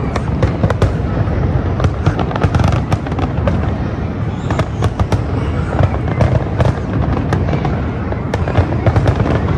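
Fireworks going off in quick succession: dense crackling and popping, several sharp cracks a second, over a continuous low rumble.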